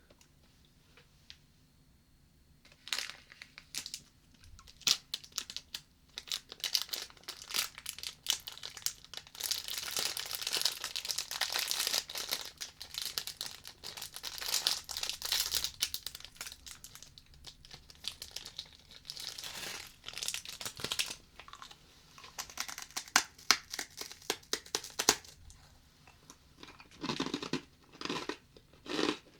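Plastic wrapper of a rice cracker (senbei) being crinkled and torn open close to a binaural microphone, in dense crackling bursts starting about three seconds in. Near the end come a few heavier crunches as the cracker is bitten.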